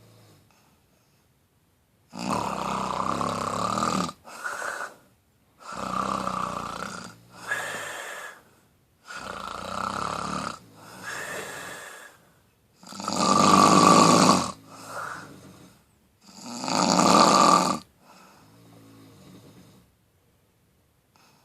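Loud snoring: five snores about three and a half seconds apart, each a long loud breath followed by a shorter one. The breath near the end is faint.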